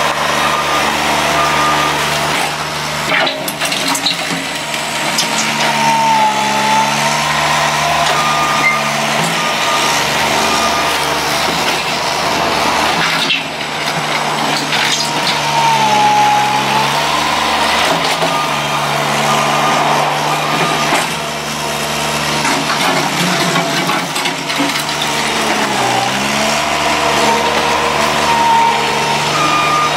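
Bobcat S70 skid-steer loader's diesel engine running steadily. Three times, about ten seconds apart, its pitch sags and recovers as the engine takes load while the bucket pushes into and lifts a pile of topsoil.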